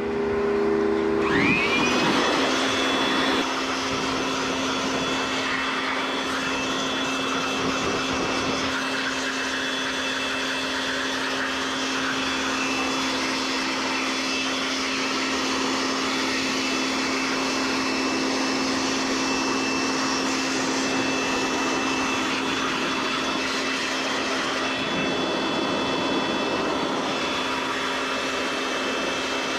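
Electric air blower switching on about a second in, its whine rising quickly and settling to a steady pitch, then running steadily as it blows dust and water out of an air-conditioning condensing unit.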